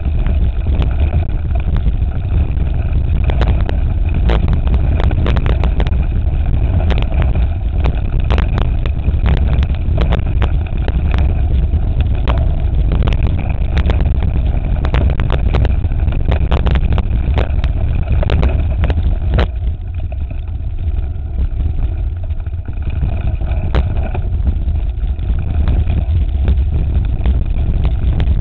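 Wind rumbling on the microphone of a mountain bike riding down a rocky dirt trail, with frequent sharp rattles and knocks as the bike runs over stones. The knocks thin out and it quietens briefly about two-thirds of the way through.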